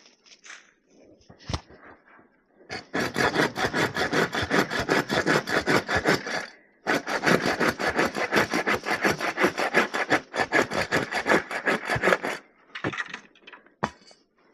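Hand saw cutting wood in quick, even back-and-forth strokes, in two runs with a short pause between them about halfway through.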